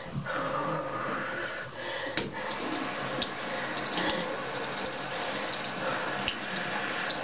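Tap water running steadily from a bathroom faucet into the sink, with a few faint clicks.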